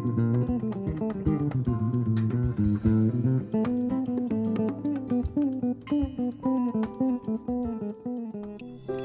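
Background music: plucked strings playing quick picked notes over a bass line, fading out near the end.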